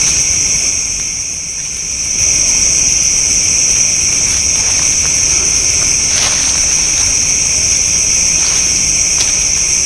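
Night chorus of crickets and other insects: a steady, high-pitched trilling drone in several layers. It dips briefly about a second in. A few faint clicks come in the second half.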